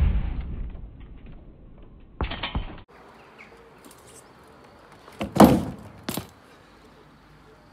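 A BMX bike knocking and clattering against a plastic playground slide as it rides onto it and drops off: a few separate sharp knocks, the loudest about five and a half seconds in, followed by a sharp click.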